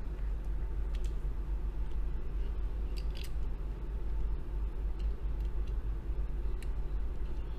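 A few faint clicks as fingers turn a small die-cast metal toy car, over a steady low hum.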